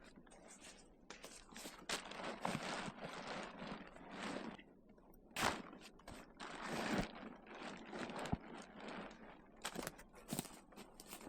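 Camp gear being handled: irregular rustling and scraping with a few sharp knocks and clicks.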